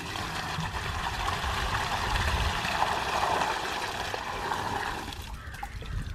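Fresh palm sap (pathaneer) poured from a plastic pot into a large metal pan: a steady splashing gush that tapers off and stops about five seconds in.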